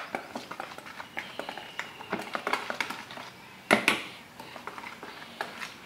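Wire whisk beating pancake batter in a plastic bowl: a rapid, irregular run of light clicks as the wires strike the bowl, with one louder clatter a little under four seconds in.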